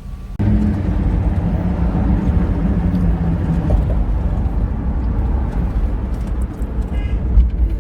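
Road and engine noise inside a moving car, a steady low rumble that comes in suddenly about half a second in. A car horn sounds briefly near the end.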